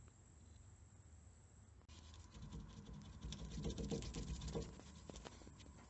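Irregular crackling clicks and scraping from cutting off the seized nut on the rear shock absorber's stem. A faint steady whine sets in about two seconds in, and the crackle grows denser from there. The nut is being cut because it is seized and cannot be unscrewed.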